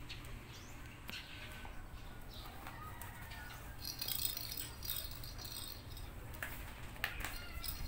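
A rubber-soled slipper scraping and rattling against a tiled floor as a cat rolls on it and paws and bites at it, in irregular scratchy bursts that are loudest about four and seven seconds in. Some bird chirps can be heard as well.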